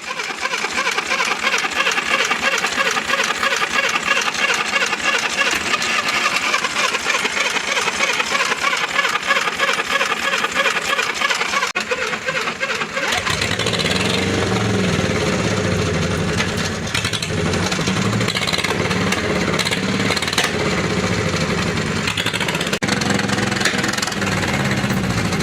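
Caterpillar 830M wheel tractor's diesel engine. For about the first twelve seconds it gives a dense, high-pitched mechanical clatter; about thirteen seconds in, a deep, uneven low thrum from the running engine sets in and continues.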